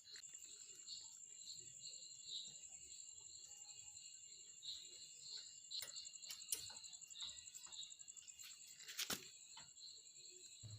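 Faint, steady chirping of insects, a high continuous trill with pulses repeating about twice a second, with a few light clicks about six and nine seconds in.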